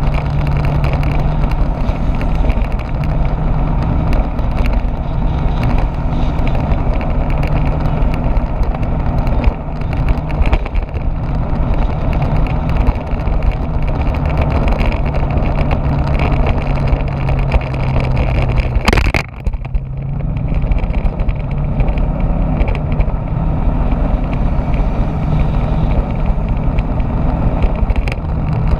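Motorbike engine running steadily at cruising speed, with wind rushing over the microphone. About two-thirds of the way through there is a single sharp knock, and the sound dips for a moment.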